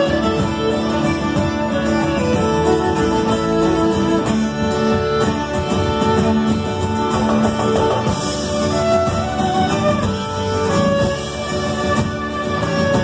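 Live Irish band playing a lively instrumental passage: fiddle over electric guitars and an upright double bass.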